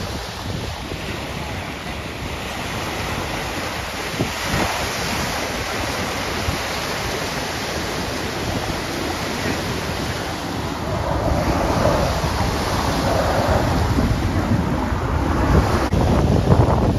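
Wind buffeting the microphone, a steady rushing noise, with the low rumble growing louder over the last few seconds.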